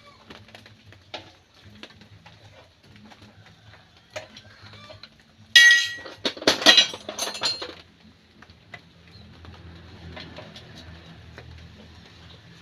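Metal clinking and clattering: scattered small ticks, then a loud burst of knocks and clinks a little past halfway, one with a brief ringing tone.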